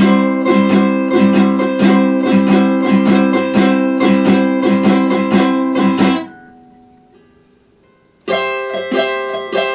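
Epiphone acoustic guitar played with quick, even strokes for about six seconds. It falls quiet as the notes die away, and the playing starts again near the end.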